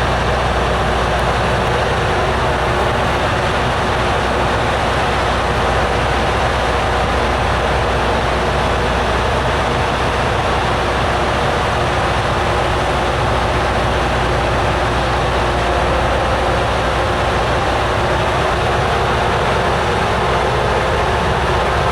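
Diesel engines of a Loram RG400-series rail grinder running steadily at idle, a loud, even drone with a low hum.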